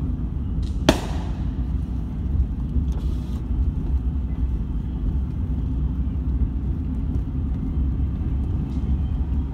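Steady low rumble of a car driving, heard from inside the cabin, with a single sharp firework bang about a second in.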